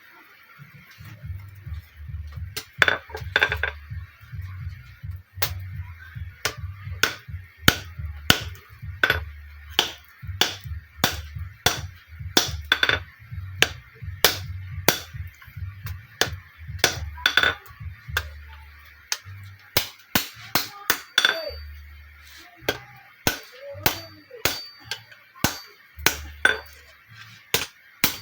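Hammer blows on iron at an anvil, a steady series of sharp, ringing metal strikes about one and a half per second during forging, with background music under them.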